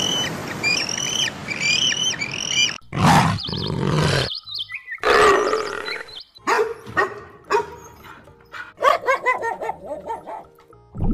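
Different animals' calls cut one after another. First comes a run of high, repeated chirping calls, then a few loud harsh cries, then a string of short rough calls.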